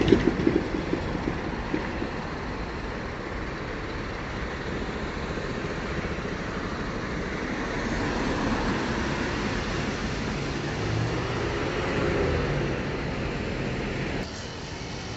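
Street traffic noise: a steady rush of tyres and engines from passing vehicles, swelling twice as vehicles go by, with a low engine hum in the second swell.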